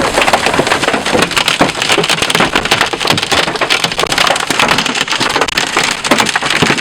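Large wind-driven hailstones striking the storm chasers' vehicle in a loud, dense, unbroken barrage of sharp impacts.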